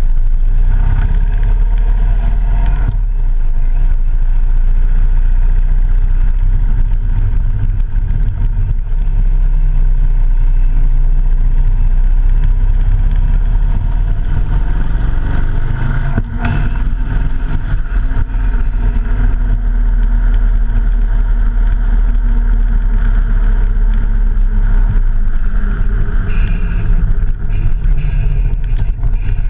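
Steady rumble of a vehicle on the move, with wind noise, heard from a camera mounted on the vehicle. An engine tone comes up about halfway through and slowly drops in pitch over several seconds.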